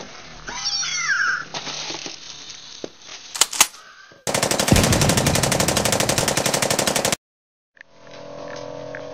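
A Zhu Zhu Pets toy hamster chirping with gliding squeaks, then a couple of sharp cracks about three and a half seconds in. These are followed by a loud, rapid machine-gun burst sound effect lasting about three seconds that cuts off abruptly. Low room noise with a steady hum follows.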